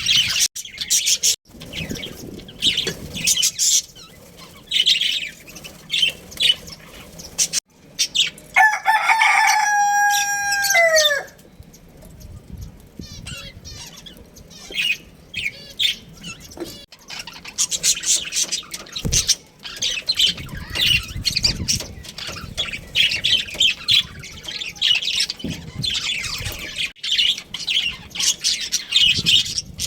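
Budgerigars chattering with a rapid stream of short high-pitched chirps. A rooster crows once about eight and a half seconds in: a single long call of about two and a half seconds that drops in pitch at the end.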